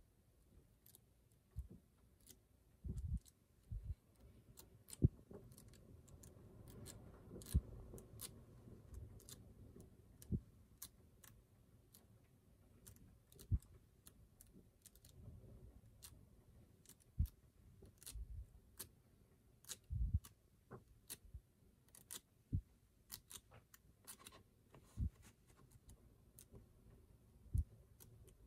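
Glossy pages of a thick photobook being turned by hand: quiet, irregular paper clicks and soft thumps as each page is flipped and laid down.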